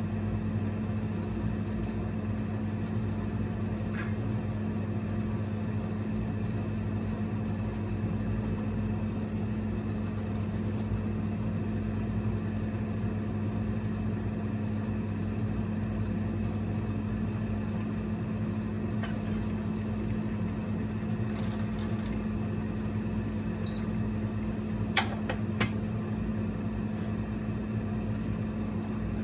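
Steady electrical hum of a single-burner induction cooktop running, with a few light clicks and ticks.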